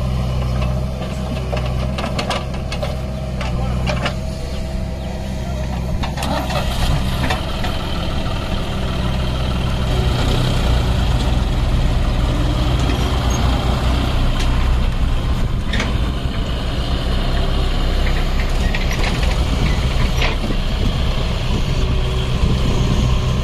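Diesel engines of a JCB 3DX backhoe loader and a John Deere tractor running, with knocks and clatter as soil is tipped into the tractor's trailer during the first several seconds. About ten seconds in the engine noise grows louder as the tractor's three-cylinder diesel pulls the fully loaded trailer away.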